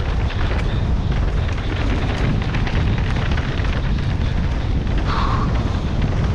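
Mountain bike descending a rough dirt trail at speed: wind buffeting the microphone over a steady low rumble of tyres on the ground, with constant small clatter and rattling from the bike.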